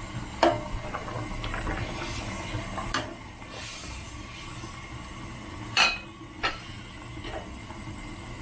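Water at a rolling boil in a wok, bubbling and hissing steadily, with a metal utensil knocking against the wok about four times as it turns a lump of corn-grit dough whose outer skin is being scalded.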